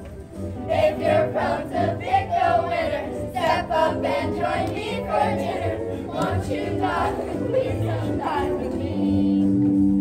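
A group of voices singing a song in chorus with musical accompaniment, ending on a long held note near the end.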